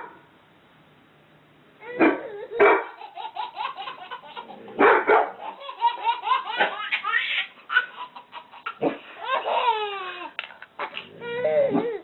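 A small child laughing in quick giggles while a dog barks, starting about two seconds in.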